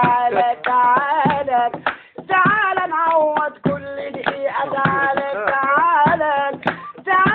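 A man singing with long, wavering held notes, with hand claps in between.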